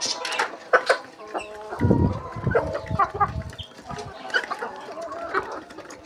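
A flock of domestic chickens clucking as they peck grain off a concrete floor, with sharp pecking clicks scattered throughout and a low rumble from about two seconds in.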